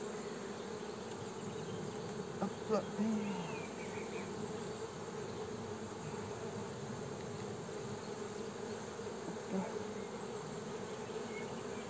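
Honeybees from an open hive buzzing steadily, a constant hum of many bees in the air around the exposed frames.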